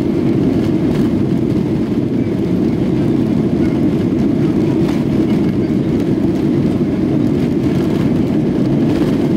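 Steady engine and airflow noise inside the cabin of a Boeing 737-800 jet airliner, an even rumble heavy in the low range that holds at the same level throughout.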